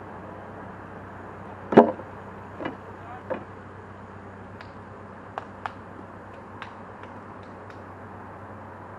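One sharp knock about two seconds in, two softer knocks soon after, then a scatter of light clicks over a steady background hiss.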